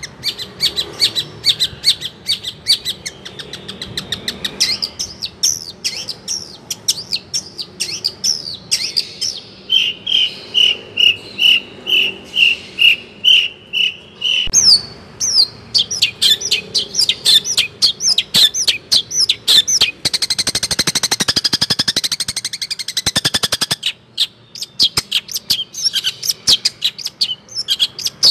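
A songbird singing a long, varied song of quick chirps and whistled notes with hardly a pause. About a third of the way in, it repeats one note about twice a second for several seconds. Later comes a fast, buzzing trill.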